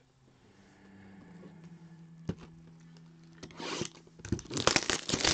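Shrink-wrapped trading-card boxes handled on a table: a low steady hum and a single click in the quieter first half, then plastic wrap crinkling and the boxes clicking and scraping, loudest near the end.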